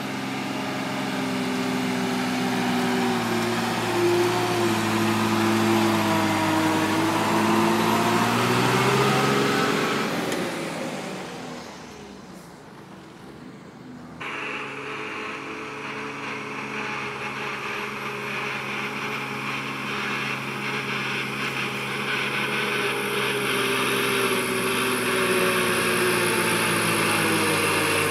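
Diesel engines of heavy Tata goods trucks running as they drive on a dirt road, the engine note rising and falling, then fading away about ten seconds in. After a short lull another truck's engine comes in abruptly and grows louder near the end.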